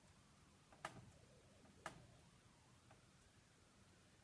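Near silence with two small, sharp clicks about a second apart, the first about a second in.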